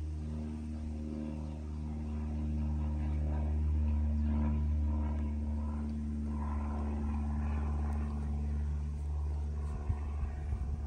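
A steady low mechanical drone, like an engine running at constant speed, holding one pitch; a few sharp knocks near the end.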